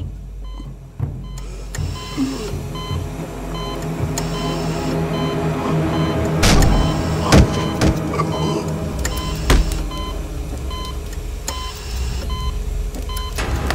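Recreated fight sound effects over a steady low mechanical drone with a quick repeating high tone. Heavy blows and a crash come around the middle, and another hard hit follows a couple of seconds later.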